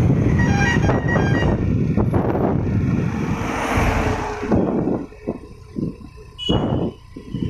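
Wind buffeting and road rumble from travelling along a highway as an ambulance overtakes close by. A few short high beeps sound in the first second and a half. The rumble is loud and even for about four and a half seconds, then drops away sharply, leaving quieter traffic noise with scattered thumps.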